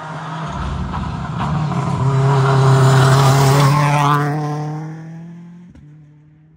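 Rally car coming up at speed and passing close by. Its engine note builds in loudness, drops in pitch as it goes past about four seconds in, then fades away.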